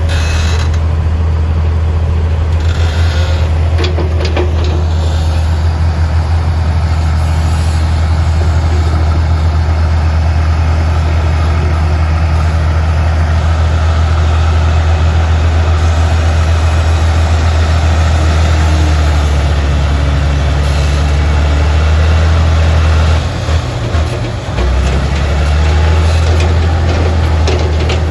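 Heavy diesel engine of earthmoving machinery running steadily with a deep drone, its level dipping briefly about two-thirds of the way through before it picks up again.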